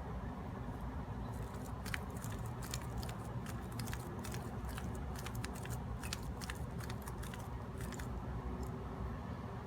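Plastic layers of a 3x3 Rubik's cube being turned quickly, a run of irregular sharp clicks and rattles as an algorithm is repeated, over a steady low hum.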